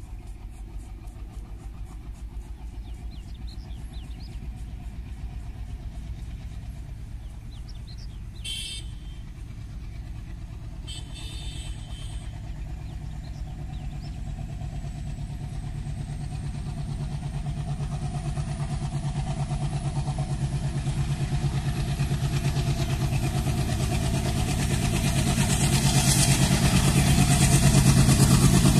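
Diesel locomotive hauling a passenger train, approaching along the track: its engine drone throbs and grows steadily louder, loudest near the end as the train draws close.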